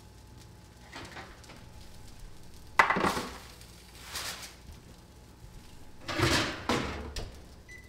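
Kitchen dishes and utensils clattering as they are handled and set down, with a sharp clank about three seconds in and more clattering near the end.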